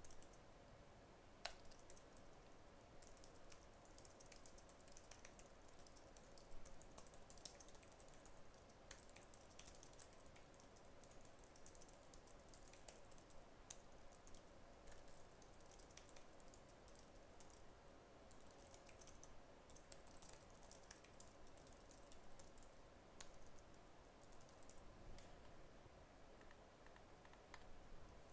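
Faint typing on a computer keyboard: irregular runs of key clicks over a low steady hum.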